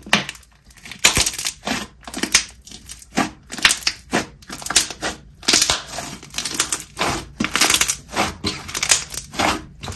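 Inflated, fluffy clear-based slime being squeezed and pressed between the hands, giving a quick run of squishy, crackling bursts that starts about a second in.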